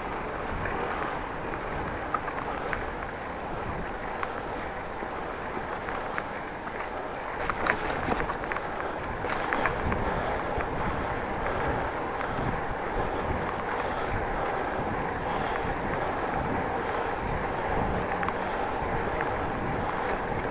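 Steady wind and rolling noise of a bicycle ride, picked up by an action camera's microphone, with a few sharp rattles about halfway through.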